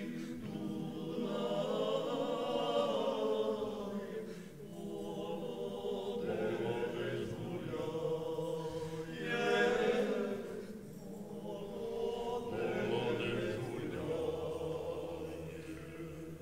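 Male folk vocal group singing a cappella in harmony, in long held phrases with short breaks between them; the singing fades near the end.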